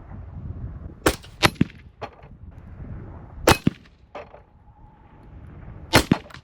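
AR-15 rifle in .223 firing: loud sharp shots in three clusters, about a second in, at three and a half seconds and at six seconds, with fainter sharp knocks after and between them.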